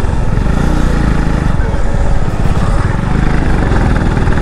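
Bajaj Pulsar NS200 motorcycle's single-cylinder engine running steadily while it is ridden, with wind rumble on the microphone.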